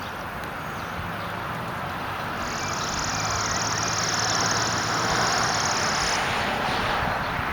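Road traffic: a vehicle passing, its tyre and engine noise swelling and then easing off, with a high steady buzz through the middle.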